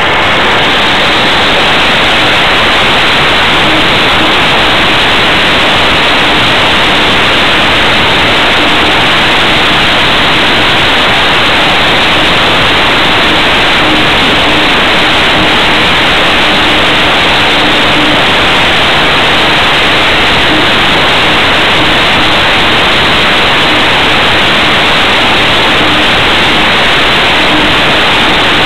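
Loud, steady rushing hiss of airflow over a small wing-mounted camera's microphone, with a faint, on-and-off hum beneath it.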